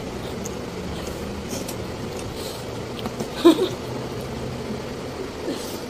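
Steady low room hum with one short voice sound, a brief exclamation or laugh, about three and a half seconds in.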